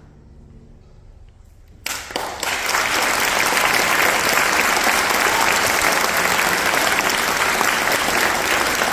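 Audience applauding. It breaks out suddenly about two seconds in, once the last faint held notes of the violin, cello and piano trio have faded, and then carries on at a steady level.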